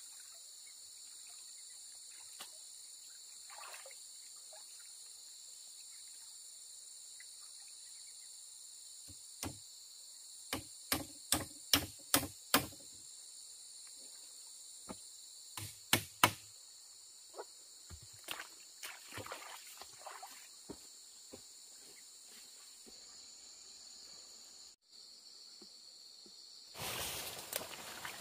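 Steady chorus of insects in several high, level bands, with sharp knocks in the middle: a quick run of about six, then scattered ones. Near the end a louder rushing noise takes over.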